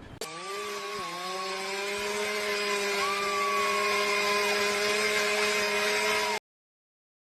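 A power tool's motor whining steadily at a high pitch, with a brief dip in pitch about a second in. It cuts off abruptly near the end.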